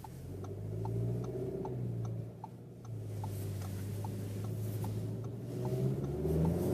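Audi Q3 40 TFSI's turbocharged four-cylinder petrol engine pulling through corners, heard inside the cabin, easing off briefly a couple of seconds in and building again near the end. A light, regular ticking runs over it, about two to three clicks a second.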